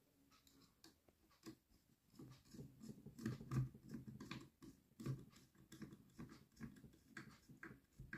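Faint clicks and scrapes of a hand screwdriver turning a screw into a plastic camera mounting base, busiest and loudest in the middle.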